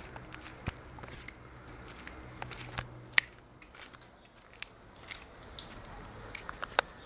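Scattered sharp clicks and crackles from a handheld camera being handled and swung around, the loudest about three seconds in and another near the end, over a faint low hum.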